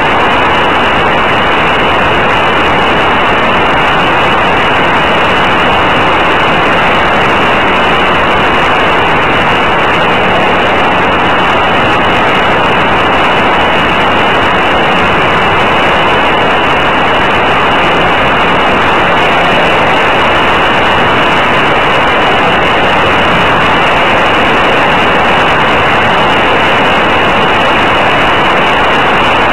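Senior Telemaster radio-control model airplane in flight, heard from a camera on board: a loud, steady rush of motor, propeller and wind noise that holds the same pitch throughout.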